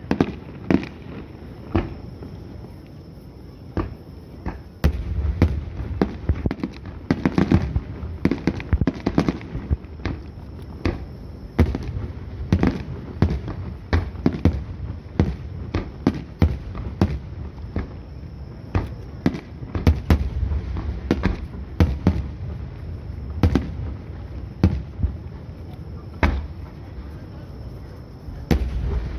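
Fireworks display: aerial shells bursting one after another in quick succession, sharp bangs and deep booms, with a short lull about two to four seconds in.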